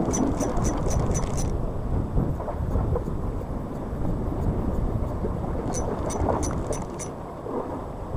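Wind rumbling on the microphone over the sea throughout. Twice it is broken by a quick run of small ticks, about five a second, from the spinning reel being cranked: once at the start and again about six seconds in.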